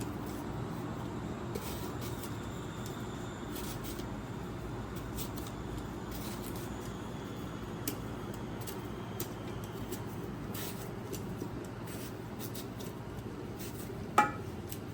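Quiet food-preparation sounds: a steady low background hum with a few faint taps, and one short ringing clink near the end.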